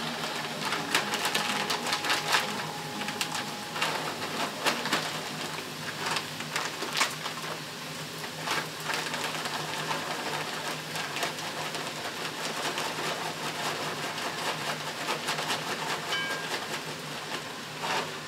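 Sliced onions and mushrooms frying in a skillet, sizzling steadily with frequent sharp crackles as a bagged roasted pepper and onion mix is poured in. The crackling is busiest in the first half.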